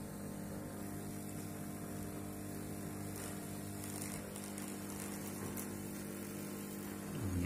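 Aquarium air pump (aerator) humming steadily, a low electric buzz, as it pushes air through an airline tube into a jar of liquid.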